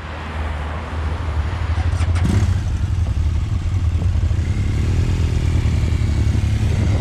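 Motorcycle engines running at low revs, a steady low throb that swells about two seconds in as a BMW R1200GS boxer twin rolls up close, with a short clack at that moment.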